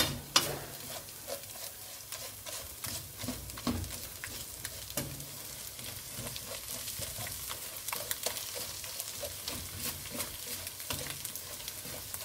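Spatula scraping and tapping against the metal kadhai while stirring scrambled eggs frying in oil, making irregular clicks over a light sizzle.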